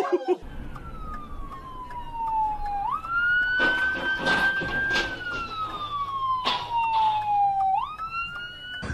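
Police car siren wailing, a tone that slides slowly down and then jumps quickly back up, twice, over the rumble of road noise inside a car. A loud crunching noise about four seconds in, and a shorter one later, comes as the cruiser crashes in the intersection.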